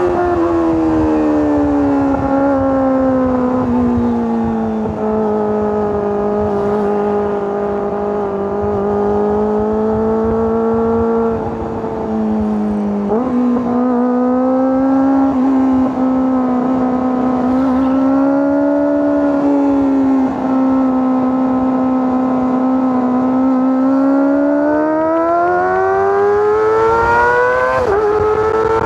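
Kawasaki ZX-25R's 250 cc inline-four engine and exhaust running at high revs on the move, a steady high-pitched wail. The pitch sinks over the first few seconds and holds, steps up sharply about twelve seconds in, then climbs again near the end before a brief dip.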